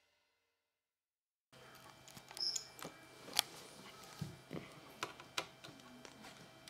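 Dead silence for about a second and a half, then small, sharp plastic clicks and taps as LEGO bricks and pieces are handled and pressed onto a baseplate, a few of them louder, over a faint steady hum.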